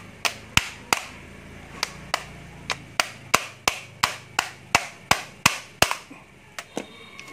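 About sixteen sharp hammer-like knocks on a cordless drill that is stiff, a few spaced out at first and then a steady run of about three a second, stopping near six seconds and followed by two lighter taps.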